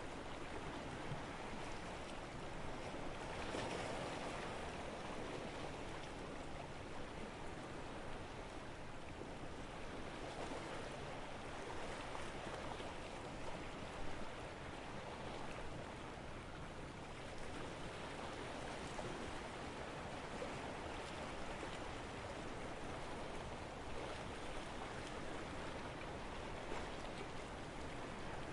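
Small Mediterranean sea waves washing and lapping at the shore: a steady wash that swells and eases every few seconds.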